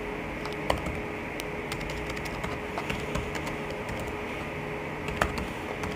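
Typing on a MacBook keyboard: scattered, irregular light key clicks over a steady faint hum.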